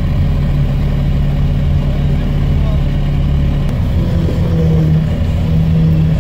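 Off-road UAZ's engine running steadily at low revs, rising in pitch twice in the latter half as it is briefly given more throttle.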